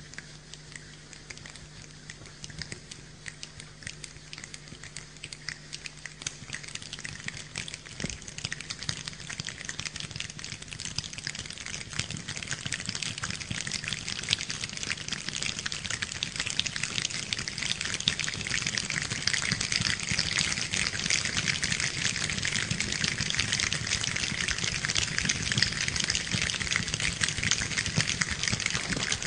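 A choir making the sound of rain with their fingers and palms: many small clicks and pats from many hands together. It starts as a light sprinkle and builds steadily into a loud, dense downpour.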